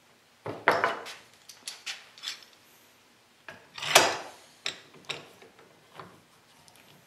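Small wooden pieces and hand tools being handled on a workbench. A short scraping rub comes about half a second in, then a run of light knocks and clicks, and a louder scrape about four seconds in.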